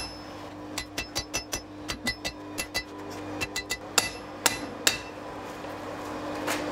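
Hand hammer striking a red-hot steel bar laid across a hardy tool on an anvil, forging a sword's crossguard. First comes a quick run of light blows, about four or five a second. Then three harder strikes with a short metallic ring, and one more near the end.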